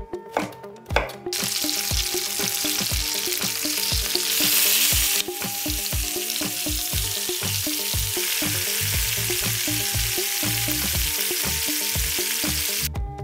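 A few knife chops on a wooden cutting board at the start. Then chicken drumsticks frying in butter in a pan make a steady sizzle, louder for about a second a little after four seconds in.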